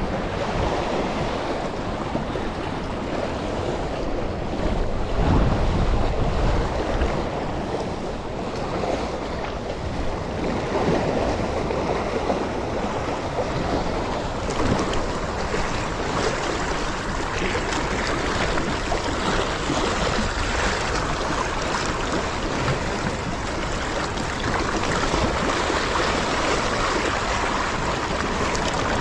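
Small waves washing and splashing over a sandstone rock shelf, a steady surge of surf, with wind buffeting the microphone, strongest about five to seven seconds in.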